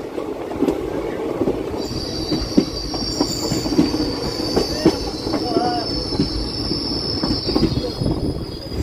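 Passenger train's coach wheels running over the rails, heard from an open coach doorway: a steady rumble with rapid clicks of wheels over rail joints. A high, steady wheel squeal starts about two seconds in and stops just before the end.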